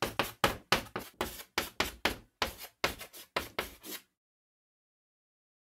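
Sound effect of chalk tapping on a blackboard: quick, irregular sharp taps, about three or four a second, that stop suddenly about four seconds in.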